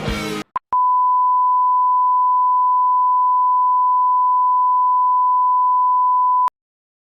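A steady electronic beep at one fixed pitch, held for about six seconds after a short blip, then cutting off suddenly. The end of a song is heard briefly at the very start.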